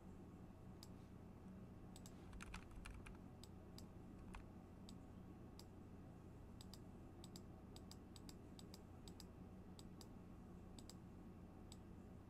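Faint, irregular clicks of a computer mouse during spot-healing retouch work, with a short flurry about two and a half seconds in, over a low steady hum.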